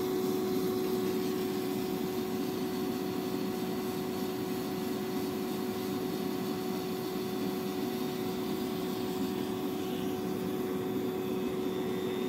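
Dremel rotary tool with a diamond bit running at a steady high speed, a constant whine, while it grinds out the pupil hole of a small wooden fish-eye base.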